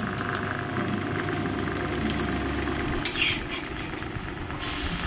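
Egg and roti frying in oil in a hot pan, sizzling steadily, with one short sharper sound about three seconds in.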